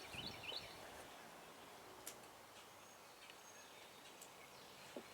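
Near silence: faint outdoor background hiss, with a few faint high chirps in the first half second and a couple of faint clicks.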